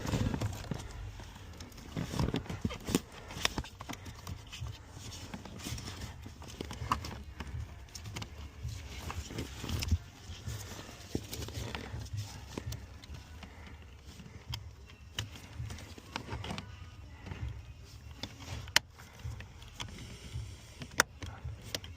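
Scattered light clicks, taps and knocks of hands working on wiring connectors and trim under a car's dashboard, with a low rumble of handling noise throughout.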